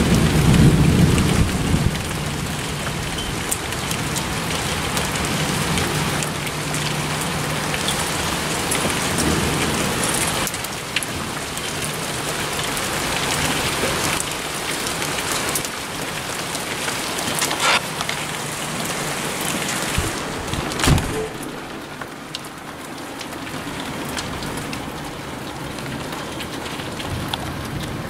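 Heavy rain pouring steadily during a thunderstorm, heard through an open door. A low thunder rumble fades out in the first couple of seconds, and a few sharp taps come later on.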